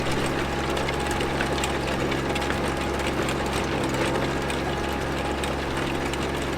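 Trencher running steadily as it cuts a trench, its engine giving a constant low drone under a continuous rattling clatter from the digging.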